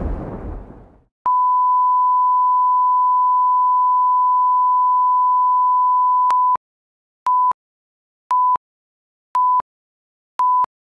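A rush of noise dies away in the first second. Then a steady pure test tone holds for about five seconds, followed by four short beeps of the same pitch about a second apart: a video's reference tone and countdown beeps.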